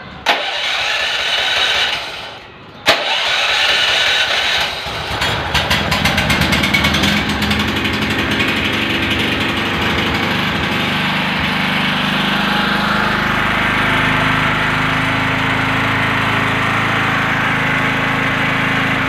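RATO 3.5 kVA petrol generator being electric-started: the starter cranks for about two seconds, stops briefly, then cranks again and the engine catches, running unevenly for a few seconds before settling into a steady run. With a new battery fitted in place of the dead one, the self-starter that was not working now turns the engine over.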